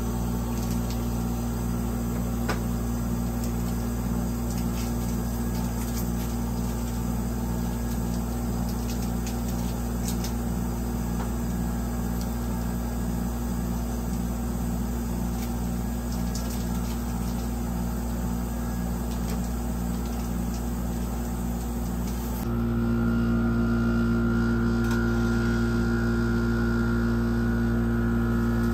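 Steady electrical hum of an ice cream roll machine's cold plate running, with a faint regular pulse low in it and a few faint clicks. A little past two-thirds through, the hum steps up louder and takes on a stronger higher tone.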